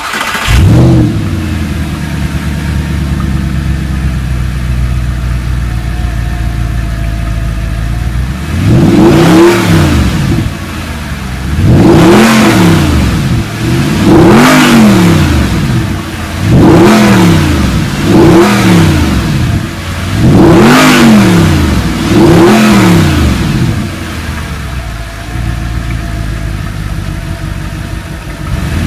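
Audi R8's 4.2-litre V8 starting with a brief flare, settling to a steady idle, then blipped about seven times from around eight seconds in, each rev rising and falling in pitch about two seconds apart, before dropping back to idle near the end.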